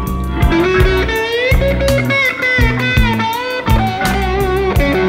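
Blues music: an electric guitar playing long bent notes over bass and drums with a steady beat.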